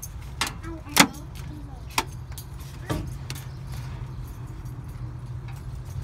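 A few sharp clicks and taps of hands working at a ribbed metal panel, the loudest about a second in, over a steady low hum.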